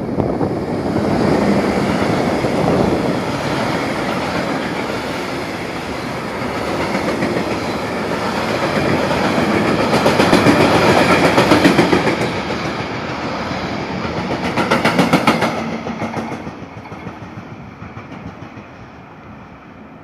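Freight train of refrigerated container wagons behind a Re 465 electric locomotive passing close by at speed: a loud, steady rumble of steel wheels on rail, with rhythmic clacking of the wheels over rail joints twice in the latter half, then fading as the train moves away near the end.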